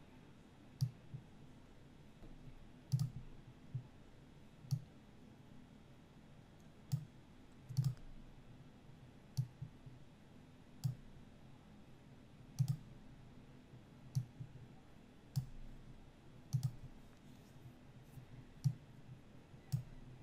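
Computer mouse clicking: single short clicks at irregular intervals, roughly one every second or two.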